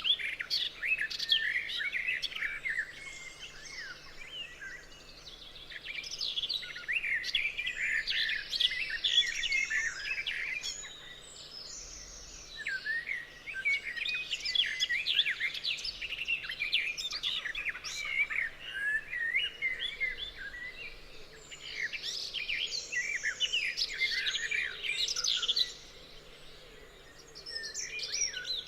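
A chorus of forest birds chirping and singing, many calls overlapping in bouts, with short quieter lulls between them.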